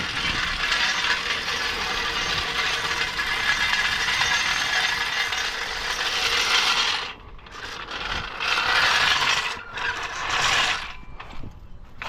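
Mechanical ratcheting rattle from a tire-change tool working at a van's front wheel. It runs steadily for about seven seconds, then comes in shorter bursts.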